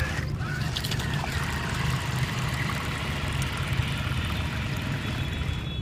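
Small electric motor of a homemade paddle-wheel RC boat running steadily, its paddle wheels churning and splashing the water.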